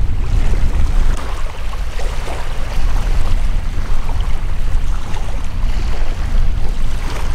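Wind buffeting the microphone: a loud, steady low rumble that swells with the gusts.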